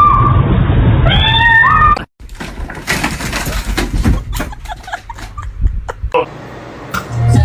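A cat meowing: a loud drawn-out call that steps up in pitch in the first two seconds, then, after a sudden cut, scattered knocks and clicks with a short falling meow about six seconds in.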